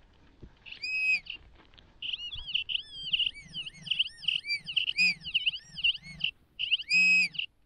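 Metal detector's audio tone sounding over a buried metal target: a short tone about a second in, then a fast run of warbling tones that rise and fall in pitch as the coil passes over the target, with a strong tone near the end.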